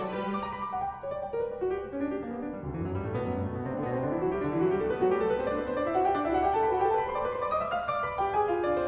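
Background piano music. A run of notes climbs steadily over several seconds and drops back low near the end.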